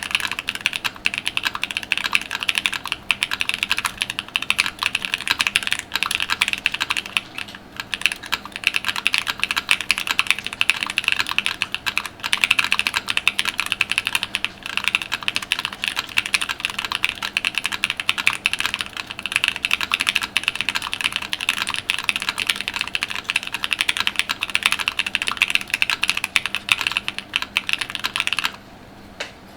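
Continuous fast typing on a Vega mechanical keyboard fitted with Chosfox Hanami Dango linear switches, aluminium plate, full foam dampening and GMK Future Funk keycaps: a dense stream of keystroke clacks, pausing briefly about a second before the end.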